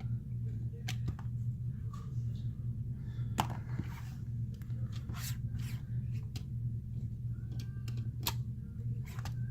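Steady low electrical hum under scattered small clicks and soft scrapes of hand tools and adhesive strips being handled and pressed onto a phone's frame.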